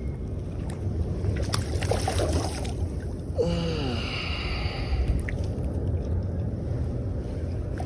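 Steady low rumble of wind and water on the microphone, with a few small knocks and a short falling vocal sound from the angler about three and a half seconds in.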